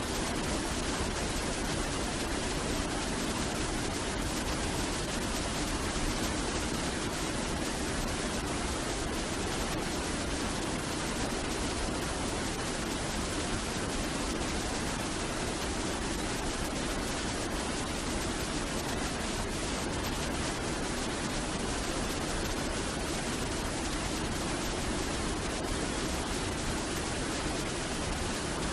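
Large waterfall: a steady, unbroken rush of falling water crashing down.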